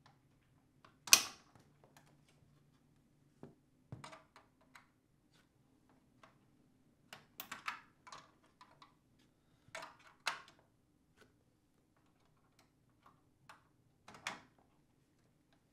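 Plastic wiring-harness connectors clicking and rattling as they are unplugged from a dishwasher's main control board: scattered sharp clicks, the loudest about a second in, over a faint steady hum.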